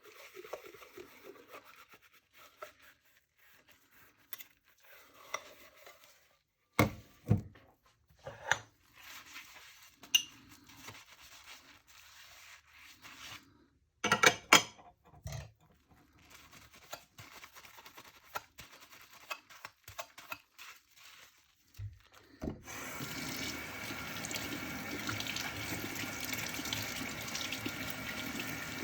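Dishes being handled at a kitchen sink, with scattered clinks and knocks, the loudest around a quarter and a half of the way through. About three-quarters through, the faucet is turned on and water runs steadily into the sink.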